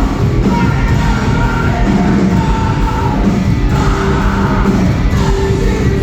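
Live rock band playing loud, with a singer's vocals over the full band.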